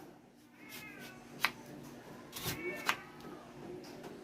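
A cat meowing twice, short calls that bend in pitch, with two sharp knocks in between, like things being set down on a kitchen counter.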